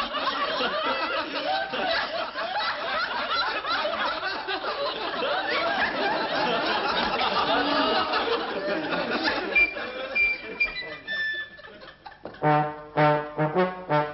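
Brass band music: a busy passage of trumpets and trombones, thinning out, then a run of short, punchy brass chords near the end.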